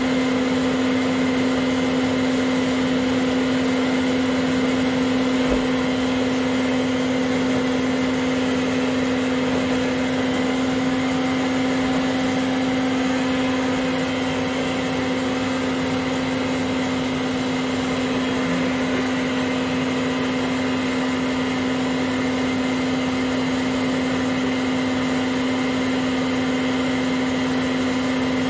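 Old vacuum cleaner running as a blower, its exhaust hose pushing air into a large inflatable pool. It is a steady motor hum with one strong unchanging tone over a rush of air, with no change in speed.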